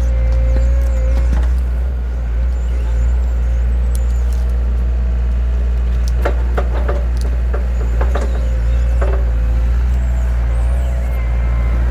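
Heavy machine's engine running steadily at a low, loud drone while working to pull a cedar tree out of the ground. From about six to nine seconds in, a cluster of sharp cracks and short squeaks stands out over the engine.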